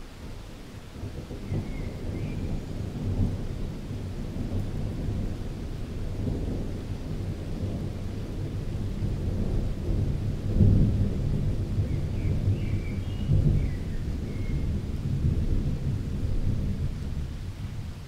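A long, deep roll of thunder that builds over several seconds, is loudest about ten seconds in, then slowly rumbles away near the end.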